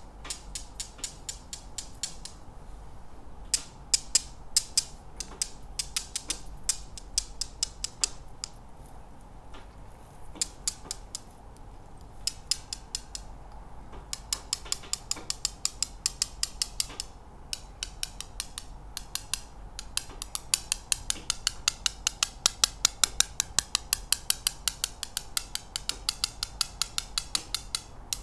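Freshly manicured fingernails tapping quickly in runs of sharp, crisp clicks with brief pauses, the tapping growing faster and denser about halfway through.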